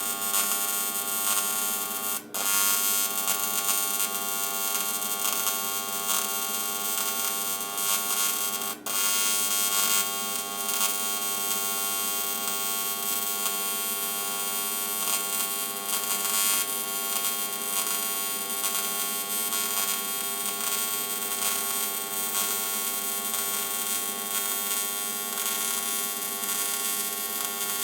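TIG welding arc running with a steady electrical buzz and a high hiss. The arc cuts out for an instant twice, about 2 and 9 seconds in.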